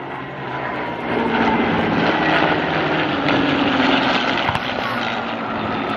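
Two WWII piston-engined fighter aircraft passing overhead, the engine drone swelling louder about a second in and its note slowly dropping as they go by.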